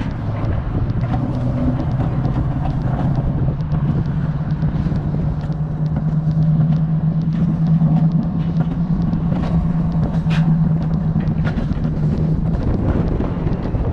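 Alpine mountain coaster sled running along its rail: a steady low hum over a rumble, with scattered clicks, the hum stepping up in pitch a few seconds in and easing near the end.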